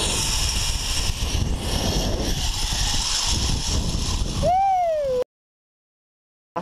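Wind rushing over a rider-mounted camera's microphone during a zipline ride: a steady roar with heavy low rumble. Near the end, a short tone rises and then falls, and the sound then cuts off abruptly.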